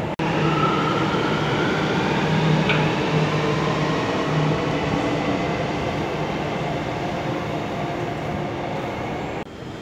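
Subway train running, a steady rumble and low hum with a motor whine rising in pitch over the first few seconds; the sound drops off abruptly near the end.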